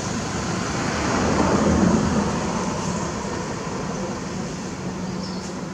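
A motor running steadily in the background, a low hum under a broad rushing noise, swelling slightly about a second in and then easing.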